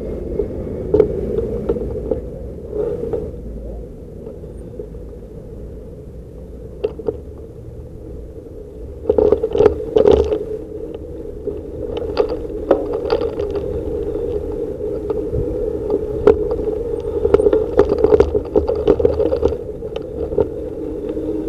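Bicycle riding noise picked up by a handlebar-mounted camera: a steady rumble of tyres and wind, broken by rattling knocks over bumpy pavement, loudest about nine to ten seconds in.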